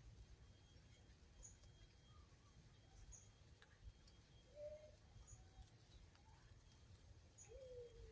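Faint, distant zebra dove (perkutut) coos, two short low notes about halfway through and near the end, over quiet outdoor ambience with faint high chirps repeating about once a second and a steady high whine.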